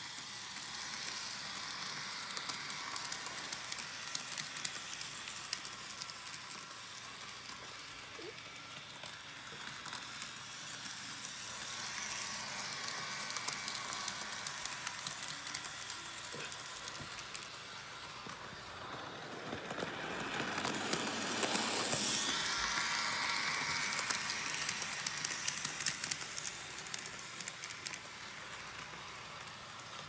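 HO scale model train running round its sectional track: a steady rattling hiss of small wheels and motor, full of tiny clicks, louder for a few seconds about two-thirds of the way through.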